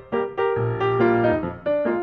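Background music: a melody of short pitched notes with chords underneath, several notes a second.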